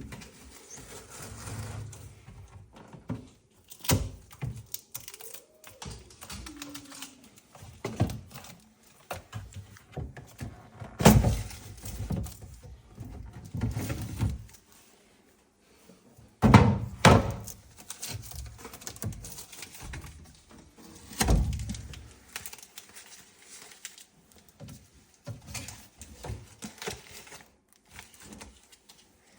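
Scattered thuds and knocks from a fridge and its packaging being handled during unpacking, the loudest about a third of the way in, twice in quick succession past the middle, and once more soon after.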